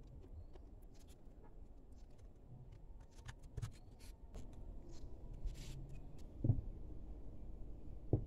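Hands handling a small plastic Bluetooth speaker: scattered light clicks and rubbing of plastic parts as the housing is fitted together, with two louder soft knocks in the second half.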